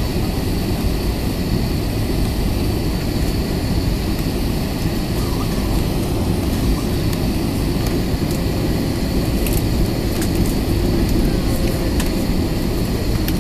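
Steady cabin noise of an Airbus A320neo on final approach, heard from a window seat over the wing: a continuous roar of engines and airflow with a thin, high, steady whine on top.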